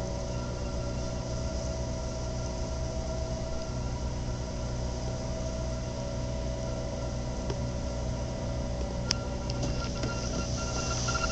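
Steady mechanical hum and drone of a nearby pumping station, unchanging, with a few faint clicks near the end.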